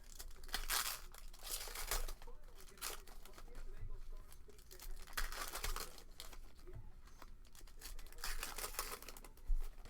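Trading-card foil packs being torn open and their wrappers crinkled, in repeated short rips and rustles.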